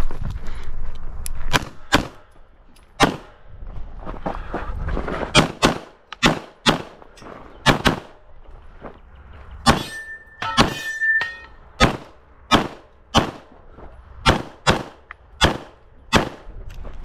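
Pistol shots fired in quick pairs, in several strings with short pauses between them. A steady ringing tone lasts about a second and a half near the middle.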